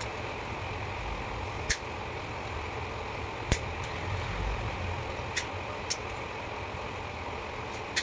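Side-cutting pliers snipping old pump-motor winding wire, a sharp snip every second or two, over a steady low hum.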